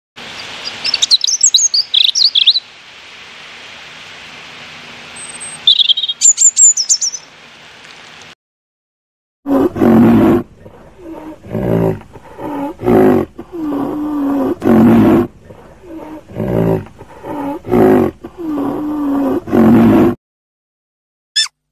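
A European robin gives high chirps over the steady splashing of water as it bathes, twice in the first eight seconds. After a short gap comes a series of about ten loud, deep, pitched calls from a rhinoceros, each lasting under a second.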